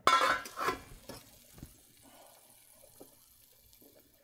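Boiling water splashing and bubbling in a stainless steel stockpot as a utensil stirs and pokes the quartered new potatoes to check whether they are done. It is loudest in the first second, then settles to a faint steady bubbling hiss.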